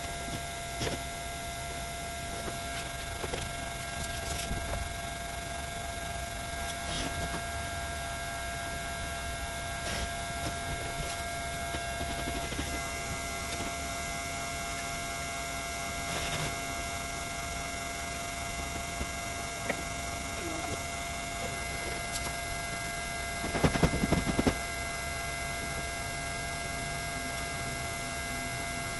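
Steady electric hum made of several held tones, with scattered light taps and handling noises, and a louder cluster of knocks about 24 seconds in.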